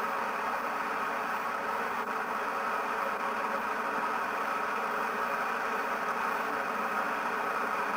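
Engine idling steadily, an even hum that holds the same level throughout.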